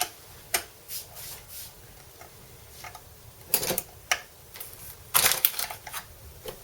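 Scattered sharp clicks and short scraping rattles of hand tools and small metal hardware being worked on an electric guitar, with a busier run of scrapes and rattles about five seconds in.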